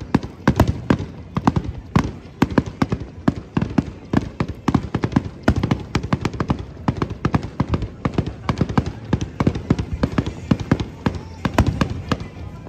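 Rapid barrage of aerial firework shell bursts, several sharp bangs a second in a continuous volley.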